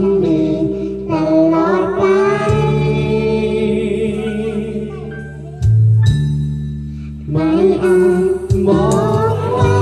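Karaoke duet: a young girl and a man singing into microphones over a backing track, amplified through a portable PA speaker.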